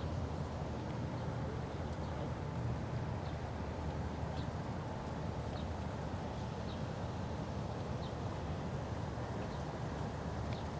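Manhattan city ambience: a steady low rumble of traffic, with faint short high ticks or chirps now and then.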